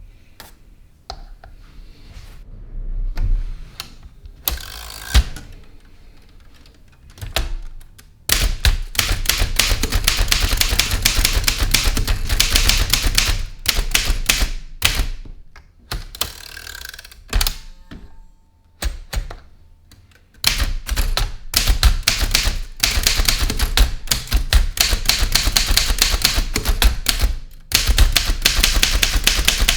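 A 1920s Underwood No. 5 manual typewriter being typed on. A few scattered key strikes come first; then, about eight seconds in, a long run of rapid clacking keystrokes begins. After a sparser pause, a second long run starts about two-thirds of the way through.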